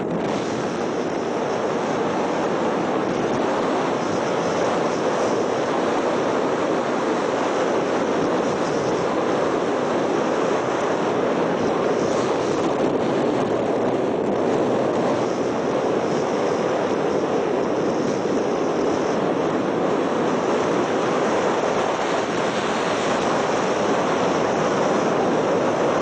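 Steady rushing noise from a moving vehicle, road and wind noise with wind buffeting the microphone.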